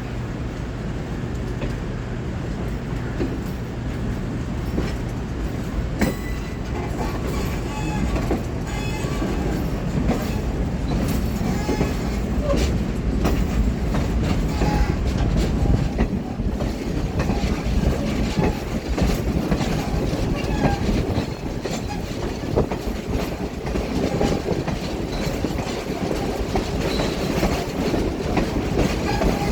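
A locomotive train moving slowly on the track: a steady engine drone with wheels clicking over rail joints and brief wheel squeals.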